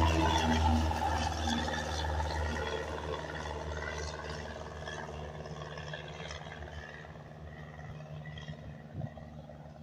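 Cessna 172S Skyhawk SP's four-cylinder Lycoming engine and two-blade propeller at takeoff power as the plane climbs out and away, the drone fading steadily as it recedes. A brief knock comes near the end.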